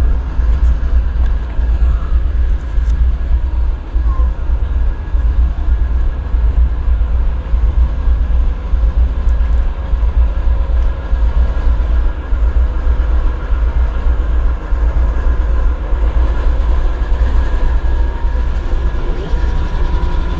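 GE ES40DC diesel-electric locomotive idling, its 12-cylinder GEVO diesel engine giving a steady deep rumble with steady higher tones running over it.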